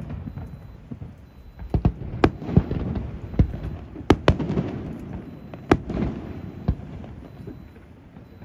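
A fireworks display: about ten sharp bangs at irregular intervals, some in quick pairs, with a low rolling rumble between them.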